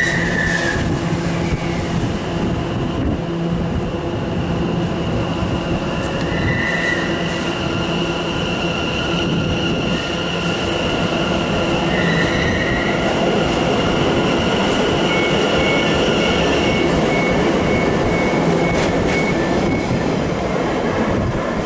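London Overground class 710 electric multiple unit moving slowly alongside the platform, with a steady electric whine over the rumble of its wheels. Brief wheel squeals come three times: at the start, about six seconds in and about twelve seconds in.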